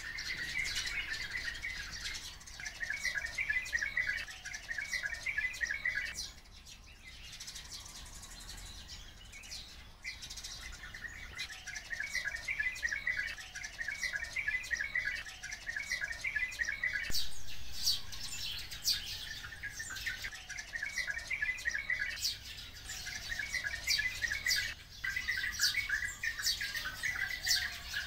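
A flock of small songbirds chirping and calling together: bouts of rapid chattering trills a few seconds long, overlaid with sharp, high single chirps, with a quieter lull about six seconds in.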